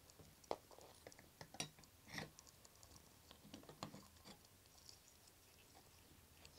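Faint, scattered clicks and light knocks of SATA hard drives and metal rack rails being handled as the drives are fitted into a metal stand. The sharpest knocks come in the first four seconds.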